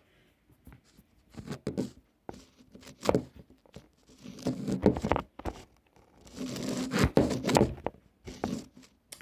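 Handling noise from a plastic dinosaur action figure being moved and posed: irregular rustles and scrapes with a few light knocks, some from a hand brushing close to the phone's microphone.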